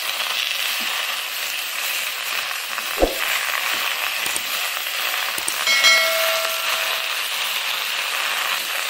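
Malabar spinach, pumpkin and potato cubes sizzling in hot oil in a metal kadai as they are stirred with a spatula. A sharp knock about three seconds in, and a short ringing chime a little past halfway.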